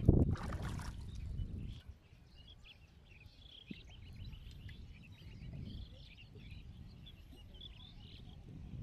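Small birds chirping, a busy run of short high chirps, over a low outdoor rumble; a louder, noisy rush fills the first two seconds.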